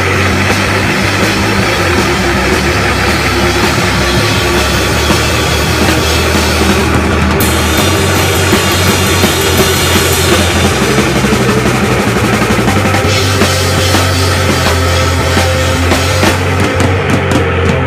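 Loud live rock music: electric guitar played with a drum kit.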